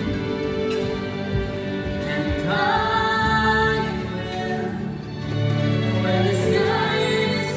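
Slow music with singing: long held notes, with the voice swooping up into a new note about two and a half seconds in and again near the end.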